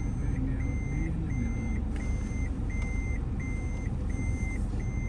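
A car's electronic warning chime beeping in an even, repeating pattern, each high beep about half a second long, a little more than one a second, inside the cabin over low engine and road rumble.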